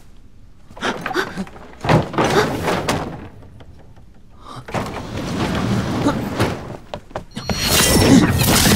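Drama sound effects: heavy thuds like doors slamming shut, about one and two seconds in, then a longer swell of noise that is loudest near the end, with a high ringing shimmer in it.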